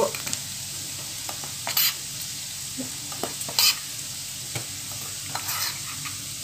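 Minced garlic and onion frying in butter in a pan, a steady sizzle with a few sharp clicks and pops spread through it, with flour just added.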